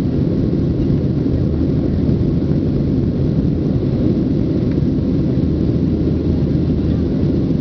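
Steady low rumble of a Boeing 737-700's CFM56 turbofan engines and the rush of air past the fuselage, heard from inside the passenger cabin in flight.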